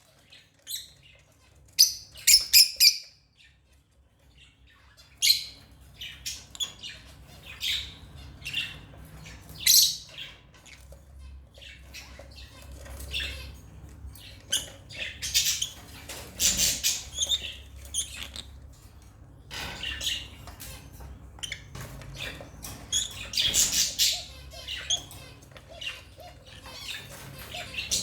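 African lovebirds chirping and squawking in short, shrill bursts, irregular and overlapping, with a brief lull near the start.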